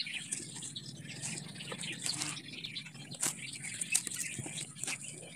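Faint rustling and crackling of dry leaf mould and dry roots as a hand presses them around a potted plant, with a few sharp clicks.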